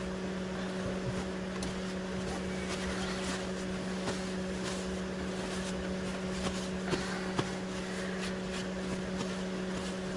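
Steady machine hum, a low even drone with a faint hiss, running without change, with scattered small clicks and ticks over it.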